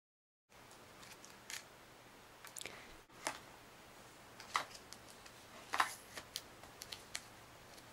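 Irregular light clicks and taps of small hard parts being handled while a MacBook hard drive is swapped, about a dozen in all, the loudest two a little over halfway through.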